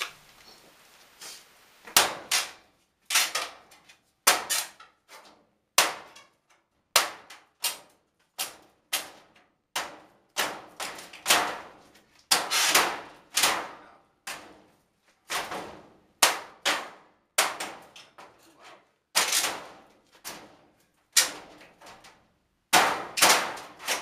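Hammer blows on the metal of an old furnace being knocked out, a long run of sharp clanging strikes about one a second, starting about two seconds in.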